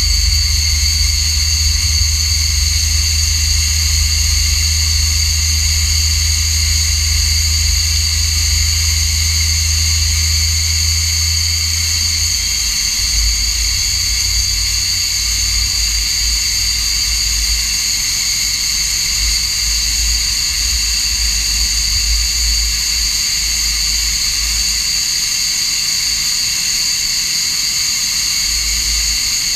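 SEPECAT Jaguar's Rolls-Royce Turbomeca Adour turbofan running on the ground: a steady high whine over a deep rumble, the rumble turning uneven about twelve seconds in.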